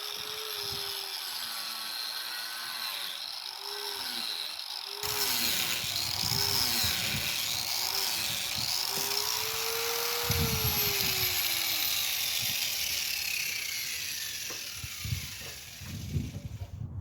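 Angle grinder raking out mortar joints in brickwork, its motor pitch dipping and recovering as it bites, then slowly falling away in the second half.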